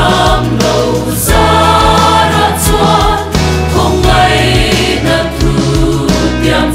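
Mixed choir of men's and women's voices singing a Christian hymn in harmony over a steady low instrumental accompaniment.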